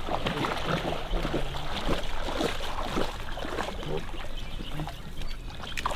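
Low, indistinct voices come and go over continual crackly rustling, like reeds and clothing brushing against the microphone.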